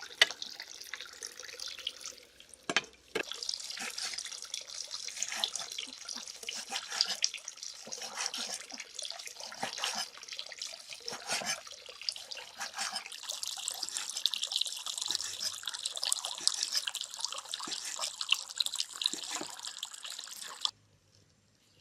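Water running and splashing, with many small drips and ticks, cutting off suddenly near the end.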